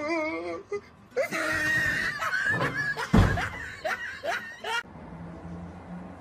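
People laughing and shrieking, with one heavy thud about three seconds in as a wooden wardrobe door comes down.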